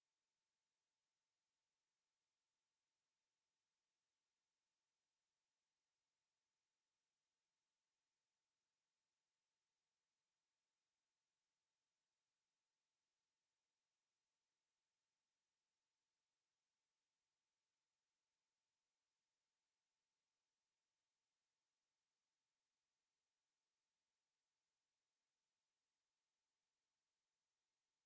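Pure sine-wave test tone at 9861 Hz, a single high-pitched steady whine, played for speaker testing and for shaking dust and water out of a speaker.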